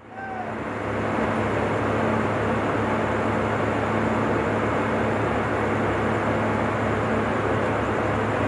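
Diesel engine of an overhead-equipment inspection tower car running steadily at idle, a constant low hum under even engine noise, fading in over the first second.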